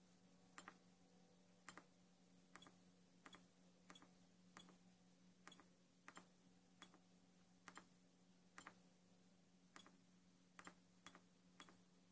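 Small tactile push buttons on a control panel being pressed one after another, about fifteen sharp clicks at an uneven pace of one or two a second, as an LCD menu is stepped through. A faint steady hum runs underneath.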